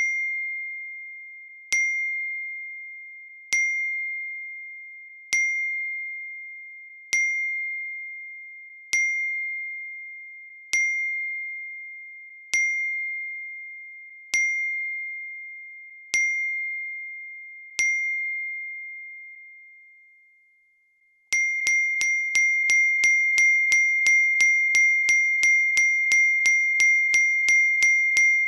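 iPhone notification ding, a single bright chime repeated about every two seconds, each one ringing out and fading. After a few seconds' pause near the end, the ding repeats rapidly, several times a second.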